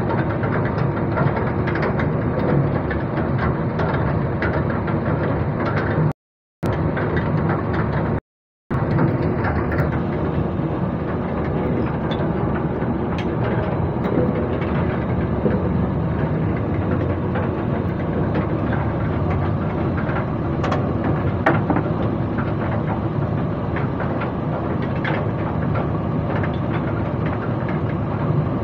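Overhauled deck winch running under power from its control lever: a steady, heavy mechanical drone with a few faint knocks. The sound cuts out completely twice, briefly, about six and eight seconds in.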